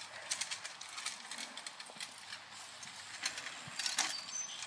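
Faint clicking and rattling of a bicycle ridden over rough, mown grass, with a sharper click about four seconds in and a short high chirp just after it.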